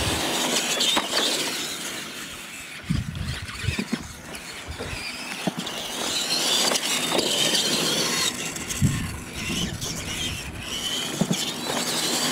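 Radio-controlled monster trucks racing on dirt, their electric motors and gears whining, with a few short thumps.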